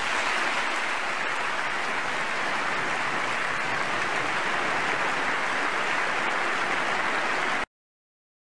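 A large crowd of members of Congress applauding steadily in the House chamber, which cuts off abruptly near the end.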